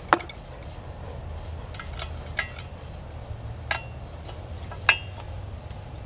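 Crescent wrench and channel-lock pliers clinking against the steel bolts and yoke of a post hole digger as the bolts are tightened: about six sharp metallic clinks, some ringing briefly, the loudest just after the start and about five seconds in.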